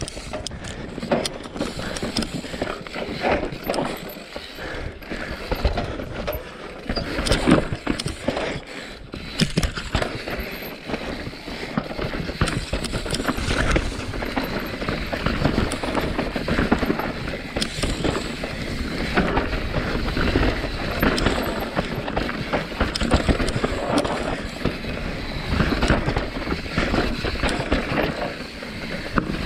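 Santa Cruz Bronson mountain bike descending a rocky trail: a continuous clatter of tyres over rocks with chain and frame rattle, over a low wind rumble on the microphone.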